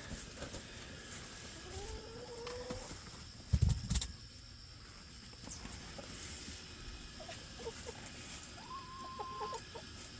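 Hens clucking and giving short calls, with one slow rising call early on and a longer wavering call near the end. A couple of dull knocks about three and a half seconds in are the loudest sound.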